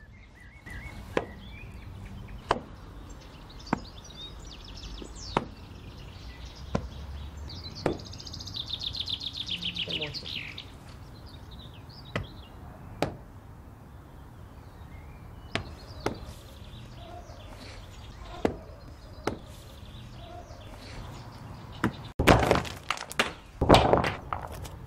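Sharp single clicks of small hard game pieces striking one another every second or so, as turns are played. A bird trills for about two seconds around eight seconds in, and near the end there are two louder scuffling bursts.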